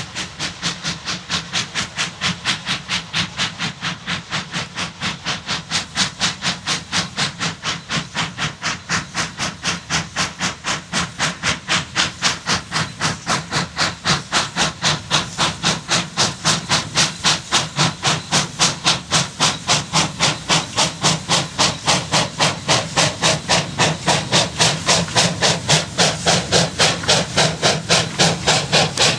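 Saddle-tank steam locomotive hauling a train of wagons, its exhaust chuffing in a fast, even beat of about four a second that grows steadily louder as it draws near.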